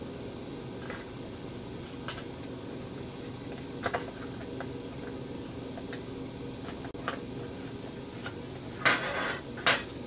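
Aluminium foil wrapper of a processed-cheese block crinkling as it is handled and peeled back, with scattered light clicks and a louder crinkle burst near the end, over a steady low hum.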